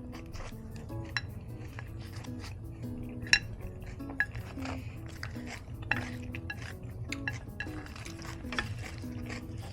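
Utensils clinking and scraping against a dish as salad is served up, with a handful of sharp clinks, the sharpest about a third of the way in. Soft background music plays underneath.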